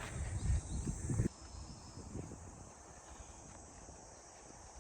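Low rumble on the microphone for about a second, cutting off suddenly, then faint countryside background.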